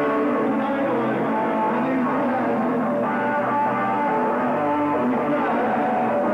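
Live rock band playing, with electric guitar prominent.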